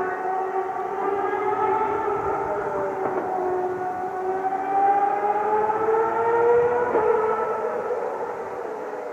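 Distant Ferrari racing-car engine at high revs, a whining note that holds steady, then climbs in pitch over a few seconds as the car accelerates, and fades away near the end.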